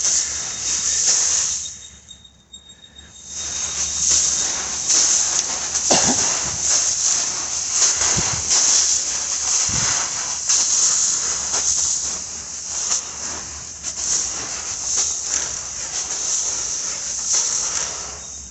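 Stored corn hissing and rustling as it shifts and crunches under footsteps in a grain bin, with a short lull about two seconds in.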